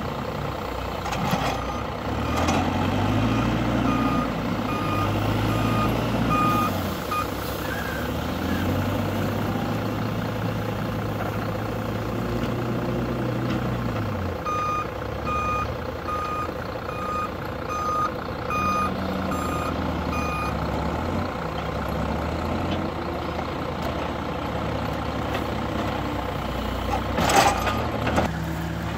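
Cat 432F backhoe loader's diesel engine working under load, its revs rising and falling as it shuttles while loading manure, with a reversing alarm beeping just under twice a second in two spells. A loud sharp clank near the end.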